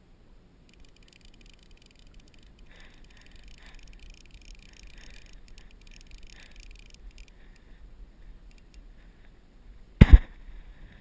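A faint, high, rapid chirring for several seconds, then a single sharp thump about ten seconds in, by far the loudest sound.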